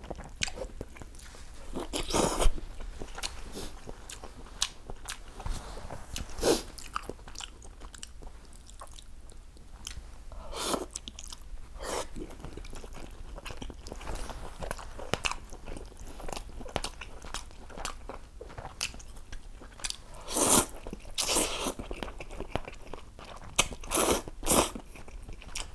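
A person eating ramen close to a clip-on microphone: mouth-noisy chewing and biting, with a scattering of louder short slurps and bites through it.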